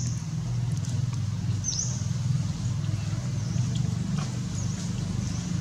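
A few short, high-pitched animal chirps, each dipping then rising in pitch, spaced a couple of seconds apart over a steady low rumble.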